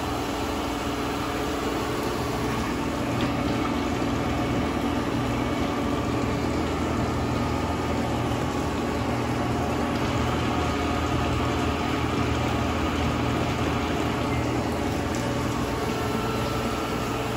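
Liebherr LC 502 CNC gear hobber cutting a gear under flood coolant: a steady machine hum with a constant splashing rush of cutting oil over the hob.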